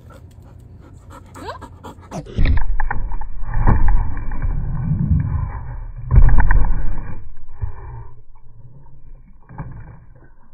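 A dog panting and mouthing a plastic water bottle close to the microphone, with loud irregular crackles and bumps. The loudest bumps come about two and a half, four and six seconds in, before the sound fades.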